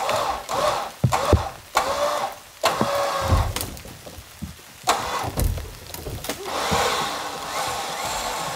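Wooden shed being dragged across the forest floor by a truck winch: uneven scraping and creaking, with a few dull knocks along the way.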